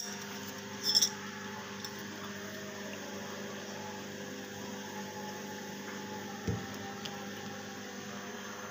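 A steady low hum, with small handling noises over it: two sharp clicks about a second apart at the start and a soft knock later on.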